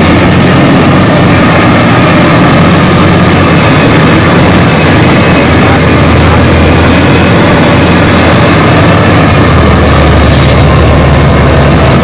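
Diesel engine of a Shantui wheel loader running steadily as the machine pushes soil with its bucket and drives along a muddy track. The low engine note grows stronger about ten seconds in.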